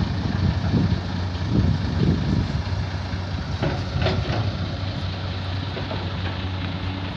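Heavy diesel engine idling steadily with a low hum, uneven for the first couple of seconds, with a couple of metallic knocks about four seconds in.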